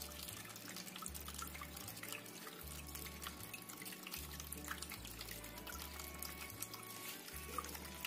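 Water trickling from a small fountain spout into a shallow basin, splashing steadily. Low background music plays under it.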